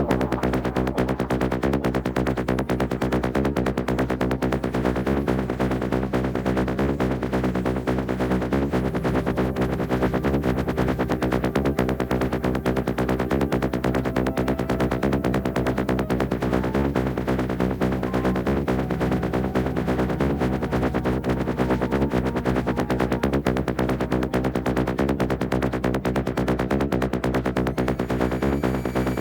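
Instrumental electronic dance music with a fast, steady beat and synthesizer chords.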